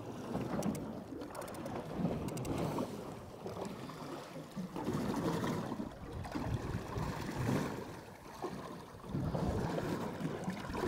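Choppy water slapping against the aluminium hull of an anchored Barcrusher 615C boat, coming in uneven surges, with wind buffeting the microphone.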